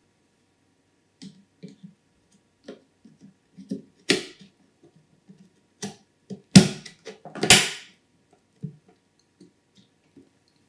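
DDR5 memory modules being handled and pressed into motherboard RAM slots: scattered light clicks and taps, with three louder sharp clicks in the middle.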